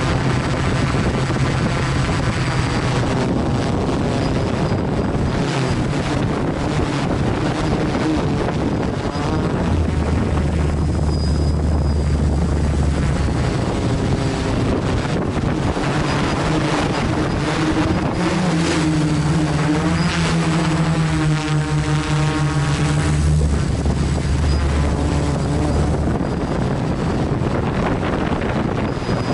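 Quadcopter's electric motors and propellers buzzing in flight, the pitch shifting as the motor speeds change, strongest about two-thirds of the way through.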